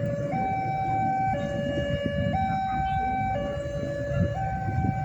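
Two-tone hi-lo siren alternating between a lower and a higher note about once a second, over a low rumble.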